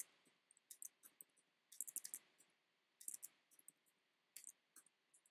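Faint typing on a computer keyboard: quick bursts of a few keystrokes, with short pauses between the bursts, as a string of ones and zeros is keyed in.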